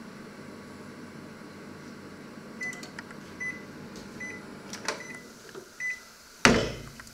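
Panasonic inverter combination microwave oven running with a steady hum, then beeping five times at one pitch as its cooking cycle ends. The hum stops, and the oven's drop-down door is opened with a few clicks and one loud clunk near the end.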